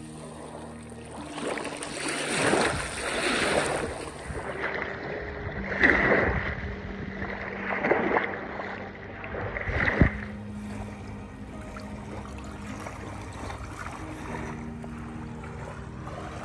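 Small waves washing and splashing onto a stony, seaweed-strewn shore, with three louder splashes about two seconds apart in the middle. Soft background music with long held notes plays underneath.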